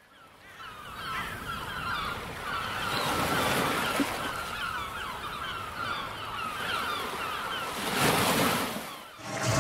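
Ocean surf washing in, with many short bird calls over it, fading in at the start. A wave swells up about eight seconds in and then dies away.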